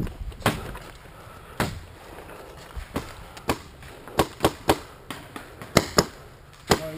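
Paintball markers firing: scattered sharp pops, a dozen or so, coming faster from about four seconds in.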